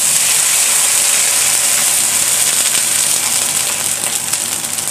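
Hot water poured from a kettle into a hot wok of oil and fried ginger slices, hissing loudly as it hits the oil and boils up, with crackling in the second half.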